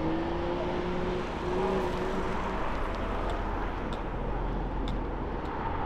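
BMW M4's turbocharged straight-six heard at a distance as the car works through a cone course, its engine note rising and falling gently in the first couple of seconds over a steady rumble of open-air noise.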